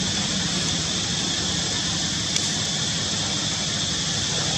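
Steady outdoor background noise: a continuous high-pitched drone over a low rumble, with one faint click about halfway through.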